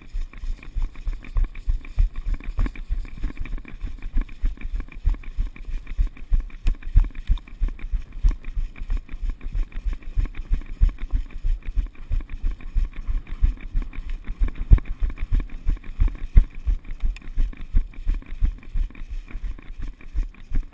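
Running footsteps on sand and gravel, with gear jolting the body-worn camera: a steady rhythm of low thuds, about three a second.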